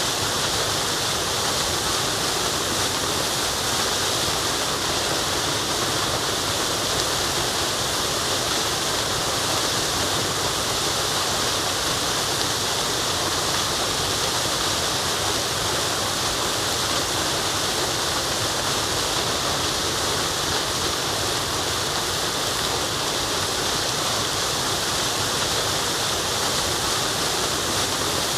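Waterfall rushing steadily, an even hiss-like roar of falling water that does not change.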